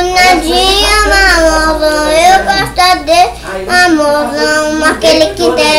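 A young girl singing, holding one long note about a second in, with short breaks between phrases.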